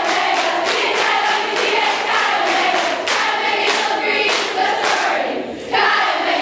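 A large group of young women singing a chant together in unison, with sharp, regular strokes keeping time. The voices dip briefly about five seconds in, then come back.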